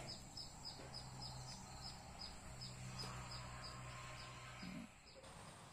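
Faint garden ambience: a short high chirp repeating about three times a second, with a steady high insect-like whine, both stopping suddenly near the end, over a low steady hum.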